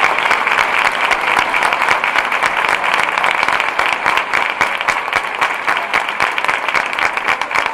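A large crowd applauding steadily, a dense, continuous patter of many hands clapping.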